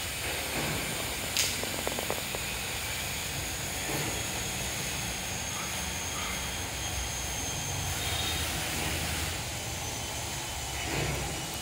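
Steady background noise, a low rumble with a hiss over it, with one sharp click about a second and a half in and a few light ticks just after.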